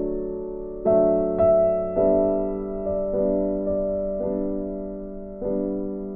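Slow, soft piano music: notes and chords struck every second or so, each ringing and dying away before the next.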